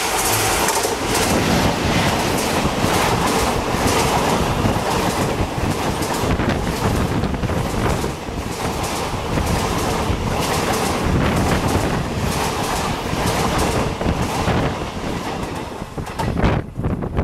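An express train of passenger coaches overtakes at speed on the next track, close alongside: a steady rushing clatter, with the wheels clicking rhythmically over the rail joints. About sixteen and a half seconds in, the last coach goes by and the rush drops away suddenly.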